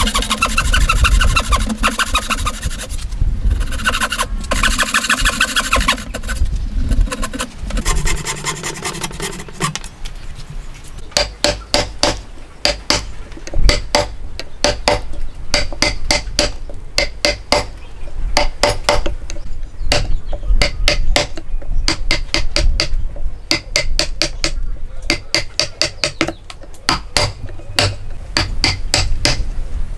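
Hand frame saw cutting through a wooden post with rhythmic back-and-forth strokes. About ten seconds in the sawing gives way to a chisel being driven into the timber, sharp knocks coming in quick runs.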